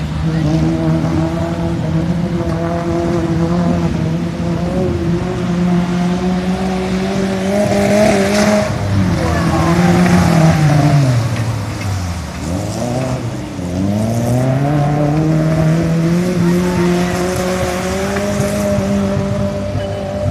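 Off-road 4x4 engine running at steady revs as it drives through a shallow river, with water splashing loudly about 8 seconds in. Partway through, the engine note sinks low and then climbs back up as the vehicle picks up speed again.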